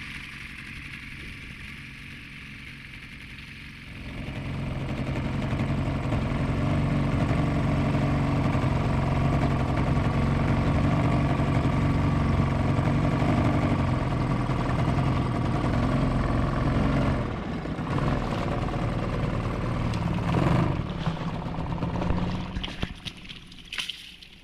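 Small outboard motor pushing an inflatable dinghy, running at a steady pitch. It comes in much louder about four seconds in, dips briefly a couple of times, and falls away just before the end.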